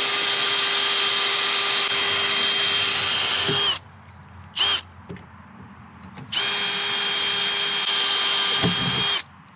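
Cordless drill drilling out the rivets on an RV cargo door's hinge plate with a small steel bit. It runs at a steady whine for nearly four seconds, stops, gives a short blip, then runs again for about three seconds.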